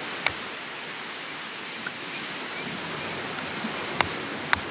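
Sharp knocks of a stone striking a fresh coconut shell half resting on a log, cracking it into smaller pieces: one knock just after the start and two near the end, with faint taps between. A steady background hiss runs underneath.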